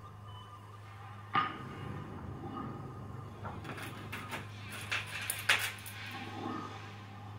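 A low steady hum, with a sharp struck sound that rings briefly about a second and a half in, then a flurry of clattering knocks and clicks, the loudest about three quarters of the way through.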